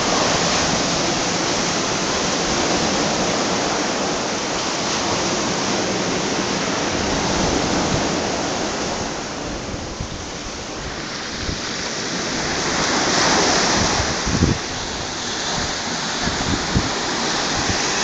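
Black Sea surf breaking and washing up a sandy beach: a steady rushing of foaming waves that swells louder about thirteen seconds in.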